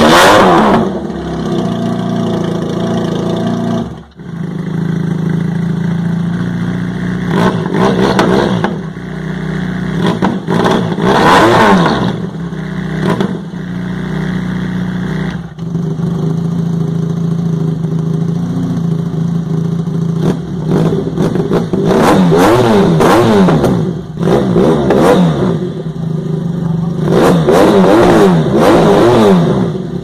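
Motorcycle engine idling through an aftermarket slip-on silencer, with the throttle blipped into short revs several times. About halfway the sound cuts to a different slip-on silencer, idling and revving the same way.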